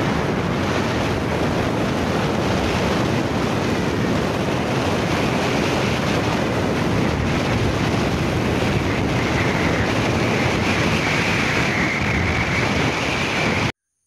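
Steady wind buffeting the microphone with road noise from a moving car, cutting off suddenly near the end.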